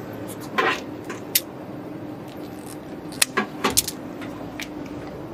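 Stiff plastic pneumatic air hose being handled and fitted to push-in connectors on cabinet valves: a scatter of sharp clicks and small rattles, a few in the first second or so and a quick run of them about three to four seconds in. A faint steady hum runs underneath.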